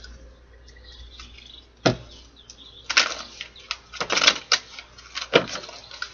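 A tarot deck being shuffled by hand: a series of sharp, irregular card snaps and slaps, with a busy cluster about four seconds in.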